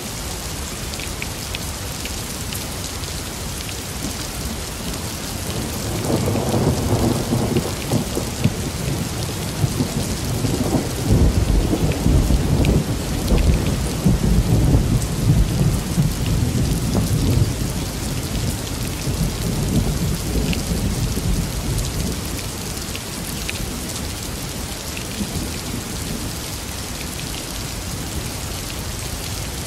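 Steady rain falling, with a long rolling rumble of thunder that builds about six seconds in, is loudest in the middle, and dies away after about twenty seconds.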